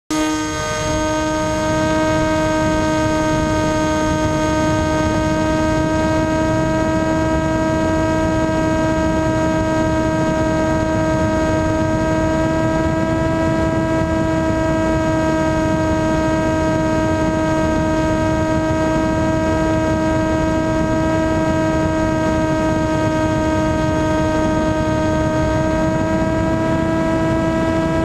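RC airplane's motor and propeller running steadily, heard from the onboard camera: a held whine with a stack of overtones over a rush of wind noise, picking up in the first second or two and then holding nearly constant pitch.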